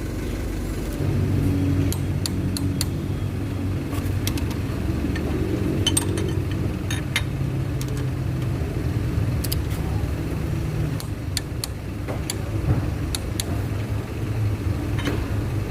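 Scattered sharp metallic clicks and taps of hand tools and engine parts being handled during engine reassembly, over a steady low mechanical hum.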